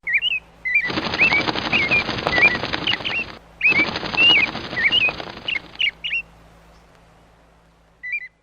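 Rapid, steady wing flapping of a remote-control bionic ornithopter bird, in two stretches with a short break between them and fading out after about six seconds. Short bird chirps sound throughout and again near the end.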